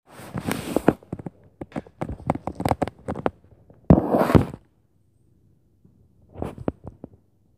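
An irregular series of sharp knocks and thumps in clusters, with two longer, rougher noises, one at the start and one about four seconds in, and a quiet gap before a last cluster of knocks near the end. The uploader presents this as stomping and banging from the upstairs neighbours.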